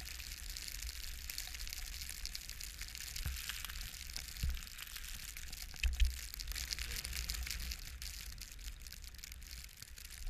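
Steady hiss of snow with fine crackling, over a low wind rumble on the microphone, with a few dull bumps about three, four and a half and six seconds in.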